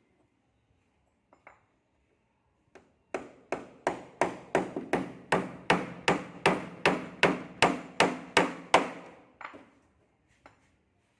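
Hammer blows on wood during carpentry work: a few light taps, then a steady run of about twenty strikes, roughly three a second, lasting some six seconds.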